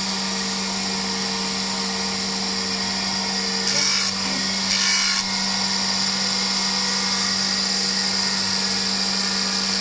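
Surface grinder running, its spindle motor and spinning grinding wheel giving a steady hum under a high whine. About four seconds in come two brief, louder rasping bursts about a second apart.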